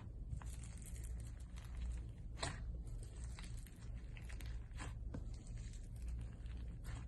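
Slime being squished and worked by hand, with small sticky crackles and a few sharper pops or snaps, over a low steady hum.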